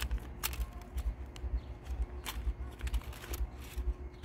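Scattered light clicks and rattles from a chainsaw's plastic recoil starter cover being handled, its flat steel rewind spring sprung loose and uncoiled: the spring escaped while the starter was being taken apart.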